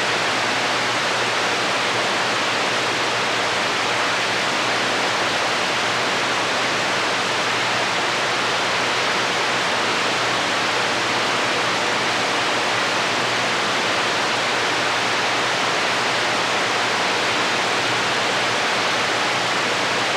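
CB radio receiver on channel 28 hissing with open squelch: steady static band noise on the 11-metre band between transmissions, with a faint low hum underneath.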